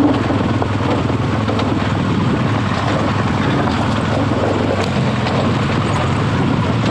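BMW R1200GS Adventure's boxer-twin engine running steadily under load as the bike climbs a rough trail, with wind buffeting the microphone.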